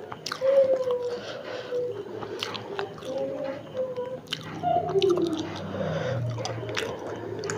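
Close-up chewing of fried potato chop (alur chop): soft, wet mouth smacks and clicks in an uneven rhythm.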